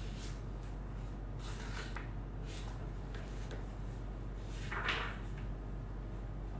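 Pages of a prayer book being leafed through: several soft paper rustles, the loudest about five seconds in, over a steady low hum.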